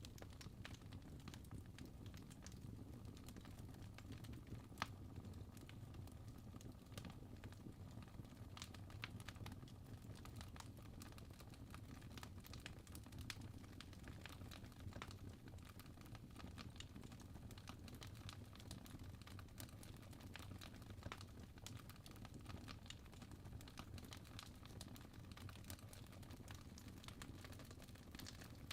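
Faint fire crackling: irregular small pops and snaps over a low steady rumble.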